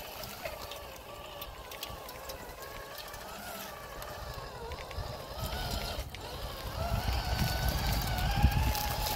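Small 1/24-scale RC crawler's electric motor and gears whining, the pitch wavering up and down with the throttle, with scattered clicks and knocks from the truck working over rough ground. A low rumble grows louder from about seven seconds in.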